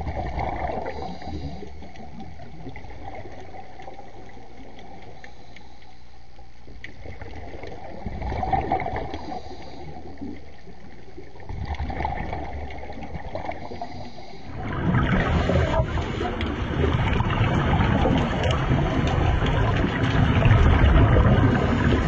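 Underwater water noise around a scuba diver: a low, steady rumble with a few swells. About 15 seconds in it turns abruptly to louder, rougher bubbling water noise.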